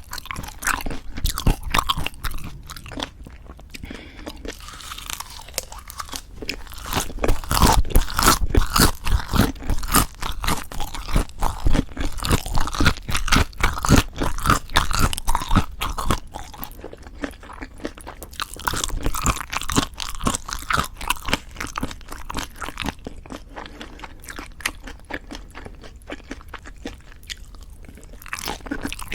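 Close-miked chewing with a dense run of crisp crunches, louder through the middle stretch.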